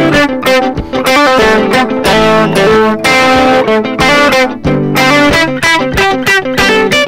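Electric guitar, a Gibson Les Paul, playing picked chords in a steady rhythm. The phrases come about once a second, with short breaks between them.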